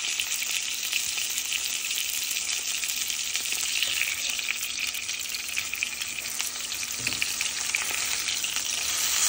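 Tuna steaks searing in olive oil in a nonstick frying pan: a steady, crackling sizzle.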